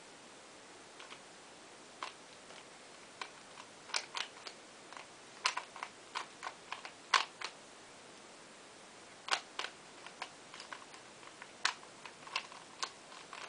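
Rubik's Cube layers being turned by hand: sharp plastic clicks, some single and some in quick irregular clusters, with short pauses between moves as the solve nears its end.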